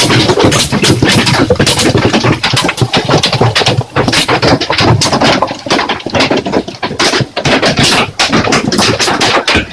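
Heavy hail: a dense, irregular clatter of hailstones striking hard surfaces, many hits each second, loud throughout.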